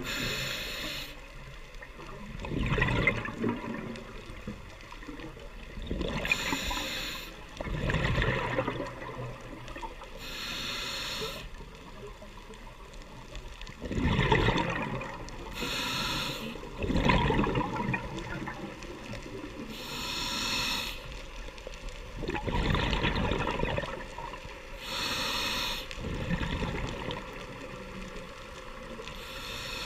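Scuba diver breathing through a regulator underwater: a short hissing inhale followed by a gurgling rumble of exhaled bubbles, repeating about every four to five seconds.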